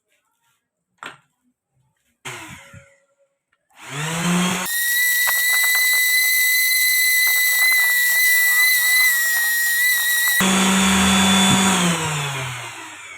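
A circular saw mounted in a homemade table saw is switched on about four seconds in, spins up, and runs with a loud steady high-pitched whine. About ten and a half seconds in it is switched off and winds down, its pitch falling until it stops. There are a few small knocks before it starts.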